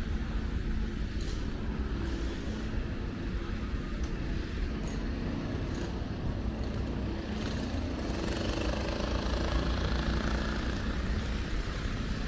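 Road traffic on a city street: motor vehicles running by in a steady low rumble, growing a little louder as one passes closer about eight seconds in.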